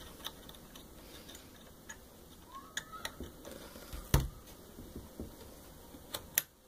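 Small clicks and taps of an LED lamp being worked into a dial-lamp socket inside a Pioneer SX-626 receiver's chassis, with a louder knock about four seconds in and a couple of sharp clicks near the end.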